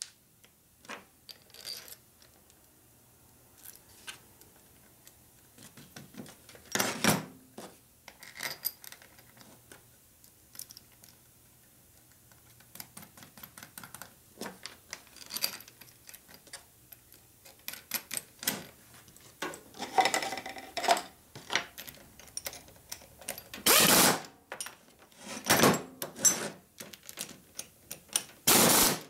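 Scattered metallic clicks, clinks and taps of Harley panhead rocker arm parts being handled and fitted together, with several louder knocks in the last third.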